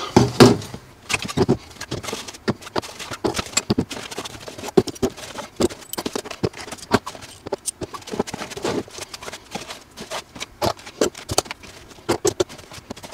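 Metal hand tools (screwdrivers, hex drivers, pliers) being pulled from a fabric tool bag's pockets and set down one after another on a tabletop: an irregular run of clacks and clinks.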